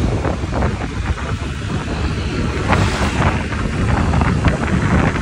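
Wind buffeting the microphone: a loud, uneven low rumble with irregular crackles through it.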